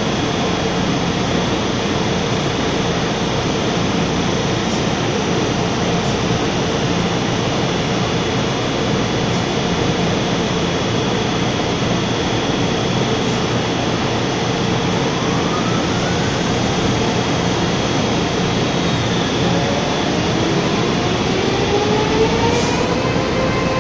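A Taiwan Railways EMU500-series electric train standing at a platform, its equipment running with a steady hum and whine over a constant rush of noise. In the last few seconds several whines rise in pitch as the traction motors start and the train pulls away, with a brief high hiss just before.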